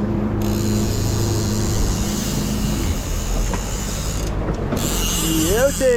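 Fishing reel ratcheting as line runs off the spool while a trolling lure is let out, over the steady low hum of the boat's engine, which fades about halfway through.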